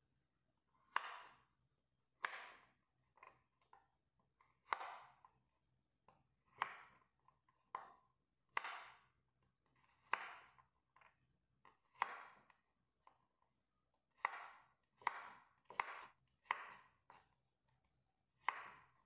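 Kitchen knife cutting a carrot into chunks on a wooden cutting board: single crisp cuts with pauses between them, about one a second, coming quicker toward the end.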